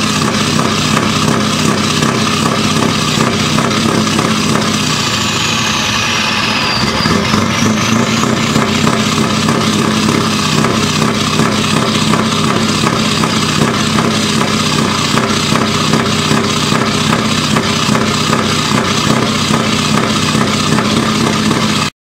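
Diesel truck engine idling steadily, heard close. A faint high whistle glides down and back up about five seconds in, and the sound cuts off abruptly at the very end.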